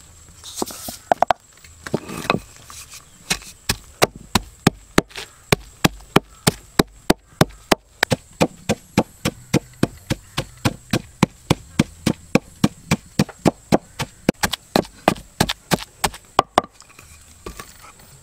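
Wooden pestle pounding garlic and red chillies in a wooden mortar, grinding them into a paste. After a few scattered knocks, the strikes fall in a steady rhythm of about three a second and stop near the end.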